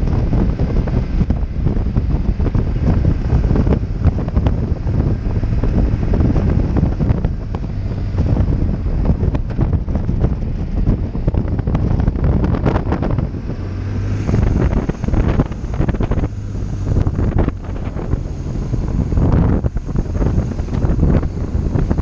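Wind buffeting the microphone of a motorcycle-mounted camera, over the low running of a BMW R1200GS Adventure's flat-twin boxer engine. From a bit past halfway the engine's steady low drone stands out more clearly beneath the wind.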